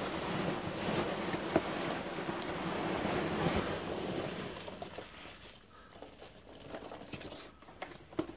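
Hands rummaging inside a large cardboard box, with a steady rustle of packing material for the first four or five seconds. Then quieter handling with scattered small clicks and knocks as a plastic tub is lifted out.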